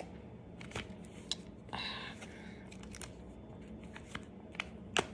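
Faint small clicks from a metal pendant necklace and its chain being handled, the loudest just before the end, with one soft sniffling breath about two seconds in.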